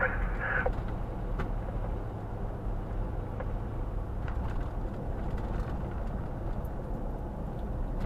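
Steady low rumble of engine and tyre noise heard from inside a car's cabin while cruising at about 50 mph.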